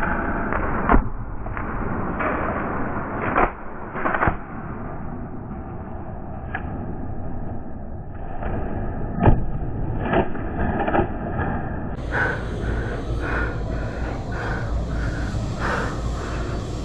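Rustling movement noise with several sharp knocks or clicks: one about a second in, two around three to four seconds, and a loud one near nine seconds.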